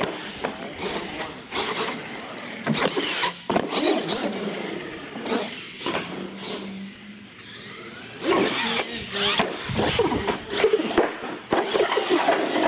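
Radio-controlled monster truck driven hard on a concrete floor: its motor whines up and down in short bursts, with sharp clattering knocks as it lands jumps and tumbles.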